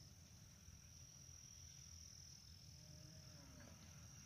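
Near silence: faint outdoor background with a thin, steady high-pitched tone throughout.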